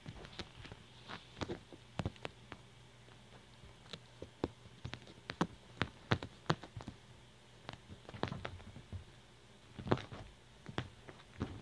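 Kitten's paws and claws tapping and scuffing on a fabric couch cushion as it tumbles after its own tail: irregular short taps in uneven clusters.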